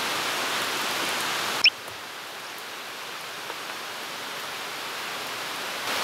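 Steady outdoor background hiss. About a second and a half in, a brief high rising chirp sounds, then the hiss drops in level at a cut and slowly swells again.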